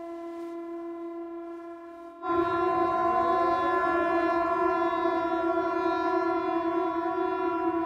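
Civil defense warning siren sounding a steady wail as the tsunami alarm. It is muffled, as if heard from indoors, for about the first two seconds, then jumps to loud and clear, with a faint rising tone coming in under it.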